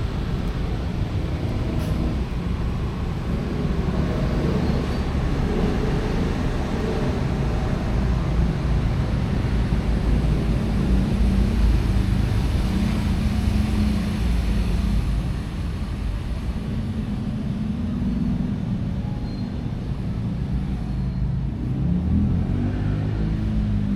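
Low, steady engine-like rumble and hum, its pitch drifting up and down, with a rising and falling sweep near the end.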